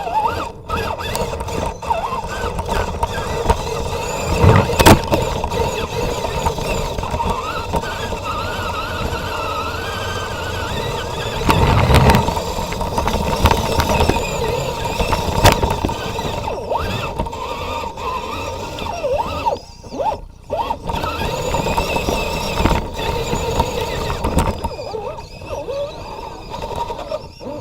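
A 1/10-scale RC 4x4 truck's electric motor and geared drivetrain whining steadily as heard from an onboard camera, with scattered knocks and scrapes as it crawls over rough ground.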